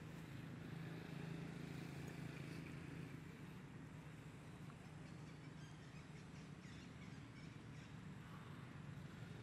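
Faint outdoor ambience: a steady low hum, with a few faint high chirps and ticks in the second half.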